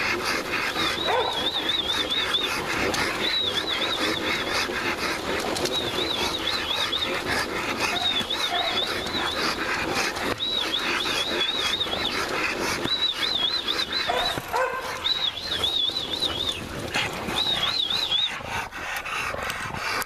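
Dogtrotter slat treadmill clattering quickly under a running bulldog, with the dog panting. A high warbling squeak comes and goes in short spells about every second and a half.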